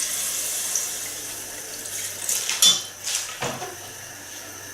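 Water being poured into a pot of chicken stir-fried with curry paste, a steady pouring hiss. A few clinks of a utensil or container against the pot come between about two and three and a half seconds in, and the sound is quieter after that.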